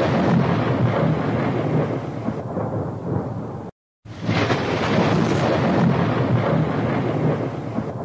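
A dense rumbling noise clip, about five seconds long, played twice with a hard cut to silence between the two plays. Each play starts with a bright rush that dulls down to a low rumble.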